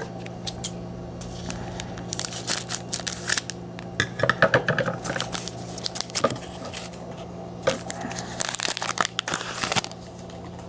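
Foil wrapper of a Leaf Certified Materials football card pack being torn open and crinkled in the hands, in irregular bursts of crackling. A low steady hum sits underneath.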